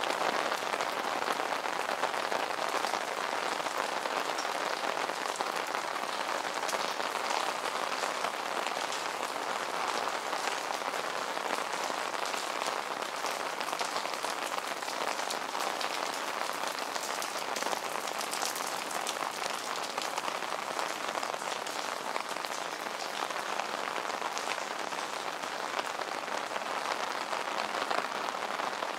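Heavy rain falling steadily on wet streets: an even hiss packed with tiny ticks of drops landing.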